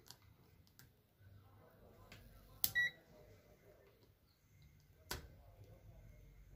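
Digital multimeter's continuity beeper giving one short beep about 2.7 s in as the test probes touch the controller's circuit board, a sign of a low-resistance path between the probe tips. Light clicks and taps of the probe tips sound around it, the sharpest just past halfway.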